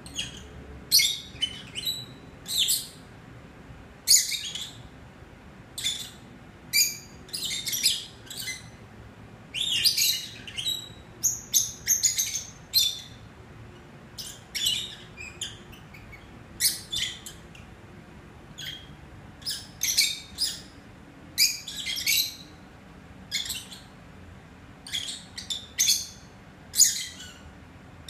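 Peach-faced lovebirds chirping: short, sharp, high-pitched chirps, often two or three in quick succession, repeated irregularly with brief pauses between.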